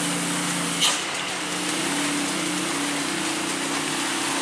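Traffic on a rain-soaked road: a steady hiss of rain and tyre spray over the steady drone of a truck engine climbing the bend, with a brief sharper hiss about a second in.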